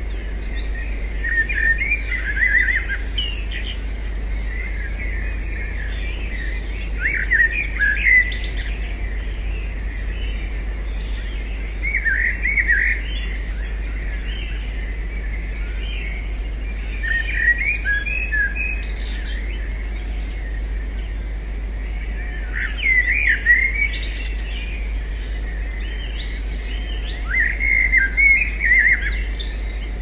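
Small songbirds chirping in short twittering bursts, one burst about every five seconds, over a steady low rumble.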